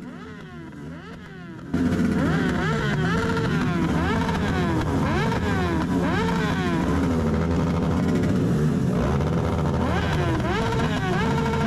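Many motorcycle engines revving up and down at once, a loud overlapping din that starts suddenly a couple of seconds in, after a quieter stretch of engine sound.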